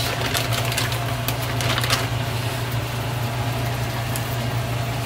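A steady low mechanical hum, with a faint even hiss of food cooking on the stove and a few light clicks.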